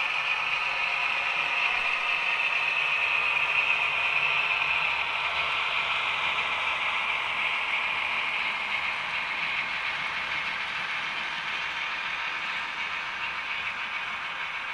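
Brawa class 213 (V100) model diesel locomotive running on the layout track: a steady whirring of its drive and wheels on the rails, loudest a few seconds in and then slowly fading.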